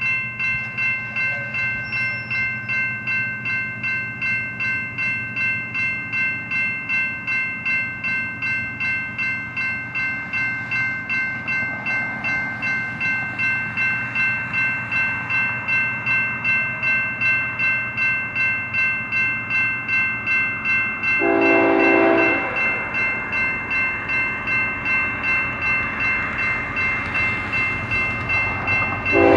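Railroad crossing bell ringing steadily at about two strokes a second while the crossing signals are active. About 21 seconds in, an approaching BNSF locomotive's horn sounds one blast of about a second, and a second blast begins right at the end, the horn signal for the crossing.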